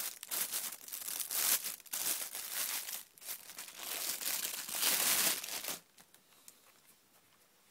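Clear plastic bag crinkling and rustling in irregular bursts as it is pulled off a camera lens, stopping about six seconds in.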